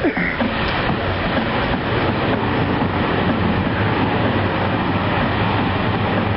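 Four turboprop engines of a C-130J Hercules making a loud, steady roar of engine and propeller noise during a short-field assault landing.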